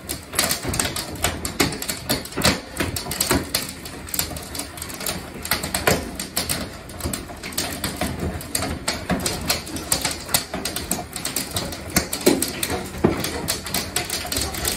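Large hailstones, up to tennis-ball size, pounding the house and its cracked window, heard from inside the room: a dense, irregular clatter of sharp knocks, several a second, over a steady roar of the storm.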